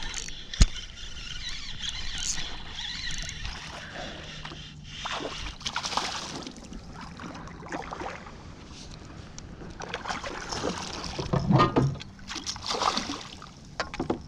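Water splashing and sloshing around a fishing kayak as a hooked bass is played and landed, with a single sharp knock about half a second in.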